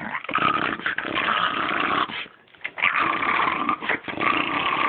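Dogs growling in two long rough stretches, with a short break a little over two seconds in.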